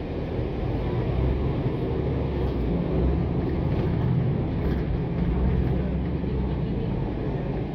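Interior of a NABI 416 transit bus: steady engine drone and road noise, growing a little louder about a second in.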